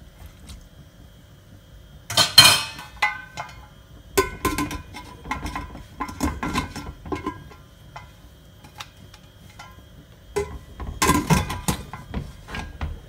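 A steel ladle clanking and scraping against the inside of a pressure cooker pot, then the pressure cooker lid being set on and closed: a run of metallic clatters and clicks, loudest about two seconds in and again near the end.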